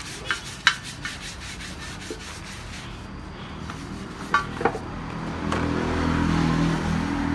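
Stiff hand brush scrubbing the bead edge of an aluminium motorbike rim in soapy water, a run of quick scratchy strokes with a few sharp knocks, working off self-sealing tyre sealant that has eaten into the metal. About five seconds in, the steady hum of an engine comes in and becomes the loudest sound.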